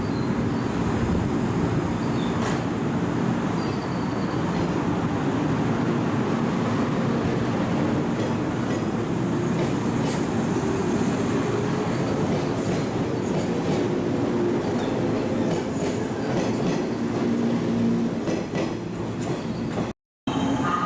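A train running at a station platform: a steady, loud rumble that cuts out abruptly near the end.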